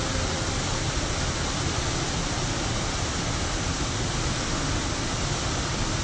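Small waterfall pouring in a curtain over a rock ledge and splashing onto a boulder and pool below: a steady, unbroken rush of falling water.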